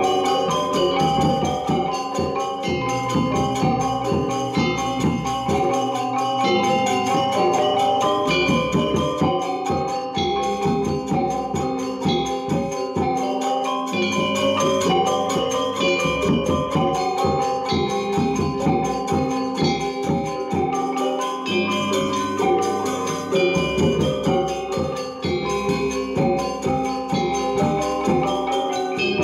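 Balinese gamelan ensemble playing: bronze metallophones and gongs struck in fast, dense interlocking patterns, with ringing pitched notes over sustained low gong tones.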